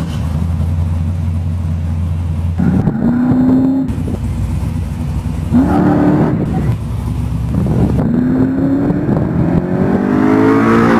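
Chevrolet Colorado prerunner truck's engine running at a steady low idle, then accelerating away, its pitch climbing in four rising runs, the last one highest.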